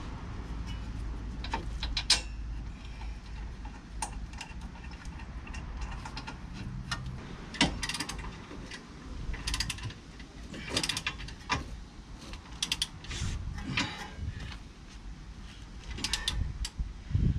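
Ratchet wrench clicking in short quick runs as the rear brake caliper carrier bolts of a 2018 Peugeot Boxer are wound in and tightened, with a couple of sharper metal knocks from the tools.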